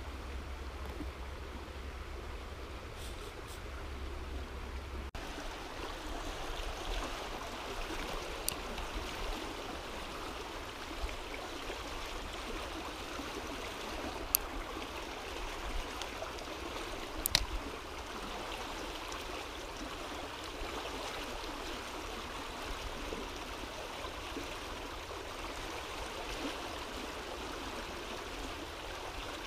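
A small mountain river flowing steadily, with a few sharp clicks in the middle stretch.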